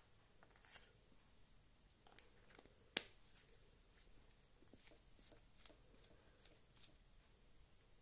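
A battery holder slid into a metal flashlight body, with a sharp clink about three seconds in, followed by the tail cap being screwed on: a run of small clicks and thread scrapes.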